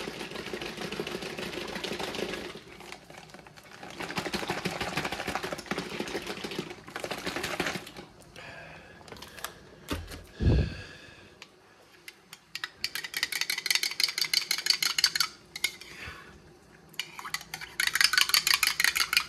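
Electrolyte drink powder being shaken up in water in a container to dissolve it, in several bursts of rapid shaking. There is a single dull thud about ten seconds in.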